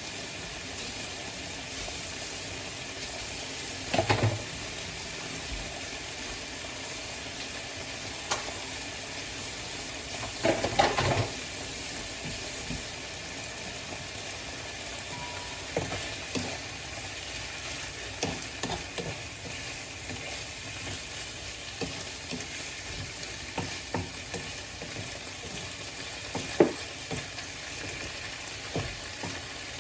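Cubed chicken breast sizzling as it sautés with garlic and onion in a pan, with a utensil scraping and knocking against the pan as it is stirred. There is a louder clatter about four seconds in and again around eleven seconds, then frequent light knocks.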